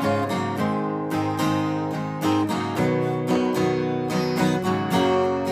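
Acoustic guitar strummed in a steady rhythm, chords struck again about every half second.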